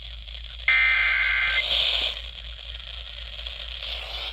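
Emergency Alert System header broadcast over FM radio. About a second in comes a loud, harsh, warbling data burst lasting about a second: the digitally encoded header that opens a severe thunderstorm warning. After it there is a steady radio hiss.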